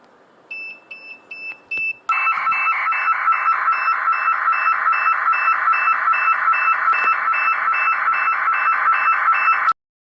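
Electronic buzzer of a MyFlyDream antenna tracker setup running its sound test. A few short high beeps come first. About two seconds in, a loud, fast-pulsing alarm tone starts and holds steady, then cuts off suddenly near the end.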